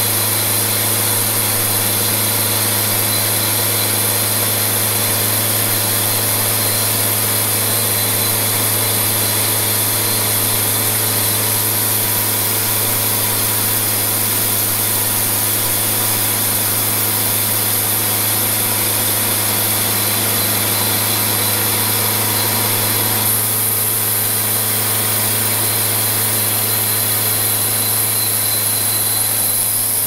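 Engine-driven Wood-Mizer portable bandsaw mill running steadily, its band blade sawing lengthwise through a red oak cant. A constant engine hum under a hiss from the blade, with no change in pace.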